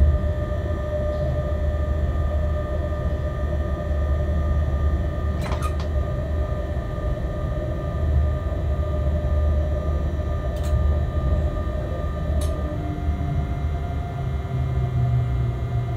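Cab noise of a locomotive running light along the track: a steady low rumble with a constant whine of several held tones, and a few sharp clicks.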